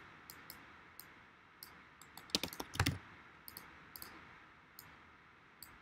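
Faint, scattered clicks of computer keys and mouse buttons, with a louder quick run of clicks about halfway through, over a low steady hiss.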